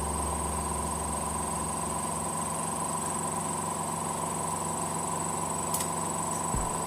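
Spin-dryer motor of a twin-tub washing machine running steadily with a hum and a high whine, now turning freely after being repaired from a state where it only hummed and would not spin. A light click near the end.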